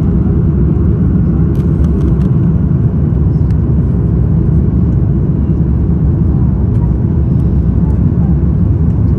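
Steady, loud low rumble of an Airbus A330's cabin during the climb after takeoff: the Rolls-Royce Trent 700 turbofans at climb power and air rushing past the fuselage, heard inside from a window seat over the wing.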